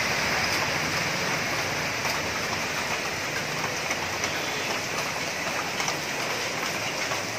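Heavy stormy rain pouring steadily: a dense, even hiss of rainfall with many scattered drops ticking close by.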